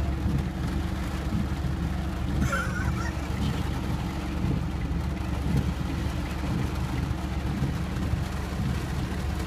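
Steady low rumble of a vehicle driving through deep floodwater, with water washing past under an even hiss. A brief higher-pitched sound stands out about two and a half seconds in.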